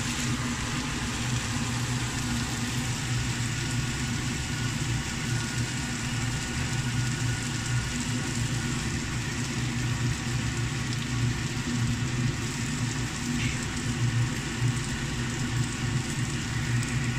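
A kitchen fan running steadily: a low hum with an even hiss over it.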